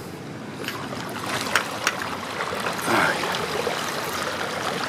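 Bicycle tyres rolling through shallow floodwater over pavement: a steady swishing and splashing of water, with a few sharp ticks in the first two seconds.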